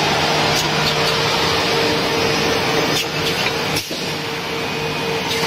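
Automatic double-end CNC tenoning machine running: its cutter motors and dust extraction give a steady hum with a held tone under a broad hiss, with a few light clicks and a brief dip about four seconds in.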